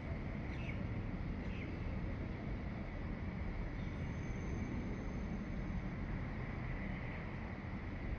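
Dawn outdoor ambience: two short bird chirps about half a second and a second and a half in, and a thin high whistle held for a couple of seconds in the middle, over a steady low rumble.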